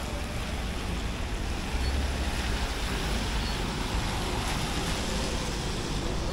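Steady city street noise of traffic, with a low rumble of wind on the microphone.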